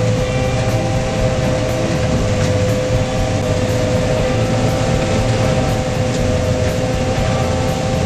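Combine harvester running under load while harvesting corn, heard from inside its cab: a steady low drone of engine and threshing machinery with a constant high whine over it.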